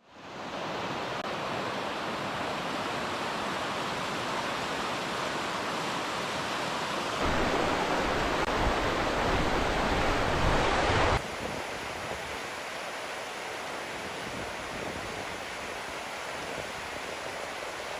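Rushing water of a rocky mountain river, a steady hiss that fades in at the start. It is louder for about four seconds in the middle, then drops back abruptly.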